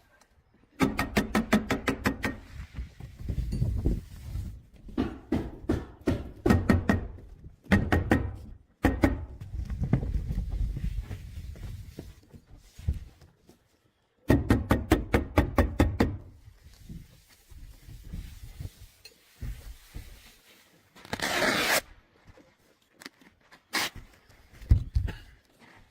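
Construction work noise: bursts of rapid knocking, about ten strikes a second, between scattered thuds and knocks, with a short hissing rush about 21 seconds in.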